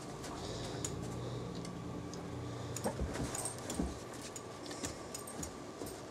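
Great Dane mouthing and nosing a small toy basketball across a rug: scattered light clicks and jingles, with two soft thumps about three and four seconds in, over a steady low hum.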